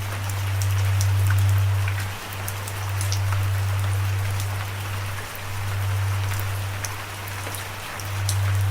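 Rain falling: a steady hiss with the ticks of single raindrops striking a surface, over a loud low hum that swells and dips every two to three seconds.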